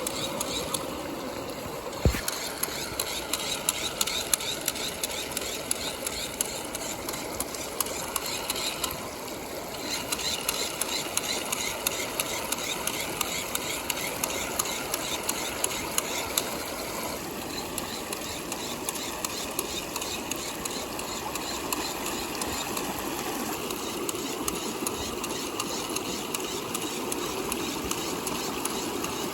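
Small pump motor running steadily while water churns and bubbles in a plastic tube, with a dense patter of fine clicks. A sharp knock about two seconds in.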